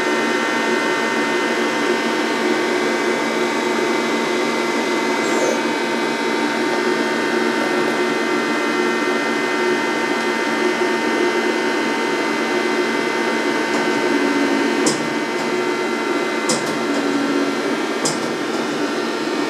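EMCO Emcoturn 365 CNC lathe running: a steady machine whir with several held tones, and three sharp clicks in the last few seconds.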